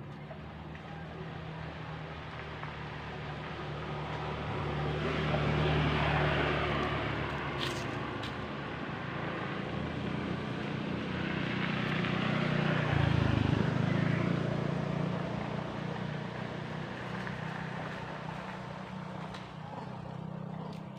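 Motor vehicle engines passing by: a steady low engine hum that swells and fades twice.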